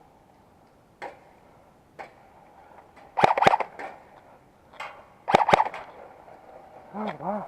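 Airsoft gun firing two short bursts of a few sharp shots each, after a couple of single clicks. A brief voice is heard near the end.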